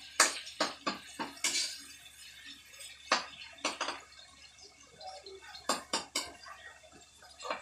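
A metal utensil clinking and scraping against a wok as vegetables are stirred. There is a quick run of clinks in the first second and a half, then scattered single clinks.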